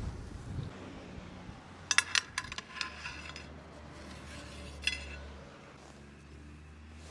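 Tableware clinking: a quick cluster of sharp clinks about two seconds in, then a single clink near five seconds.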